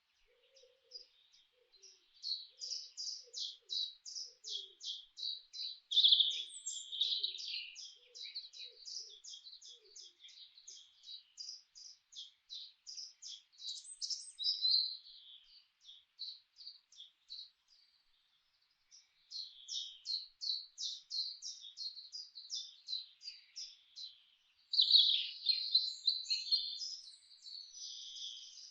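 Songbirds chirping: long runs of short, high, quick notes, about three to four a second, with a brief pause about two-thirds of the way through. Faint low calls sound under them during the first third.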